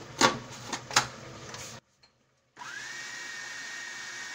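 A food processor's plastic lid clicking into place, then after a short gap the motor spins up and runs at a steady high whine, chopping a chicken, bread and milk mixture.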